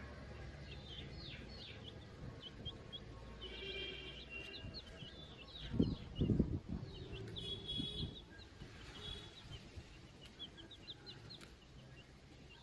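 Domestic chicken chicks peeping over and over, in short high chirps that slide downward, with a few longer calls among them. Two dull thumps sound a little past the middle.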